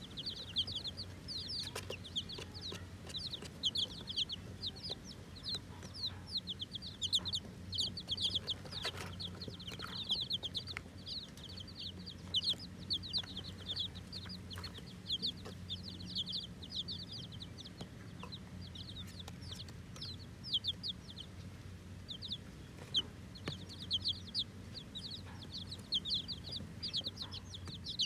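A brood of newly hatched chicks peeping: many short, high-pitched cheeps overlapping almost without a break, thinning out for a few seconds about two-thirds of the way through.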